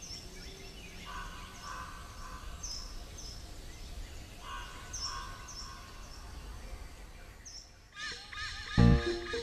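Wild birds calling: short high notes repeat about once a second, and a lower warbled phrase comes twice, about one and four and a half seconds in. Near the end, music with a heavy beat comes in.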